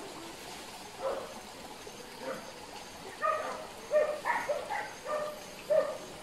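Hunting dogs barking in a series of short, sharp barks, sparse at first and coming thick and fast in the second half.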